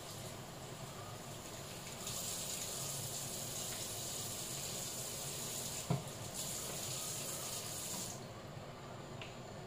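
Mussels boiling in a frying pan of foaming liquid on a gas stove: a steady bubbling hiss that grows louder and sharper from about two seconds in, then drops back near the end. A single short knock sounds a little before six seconds.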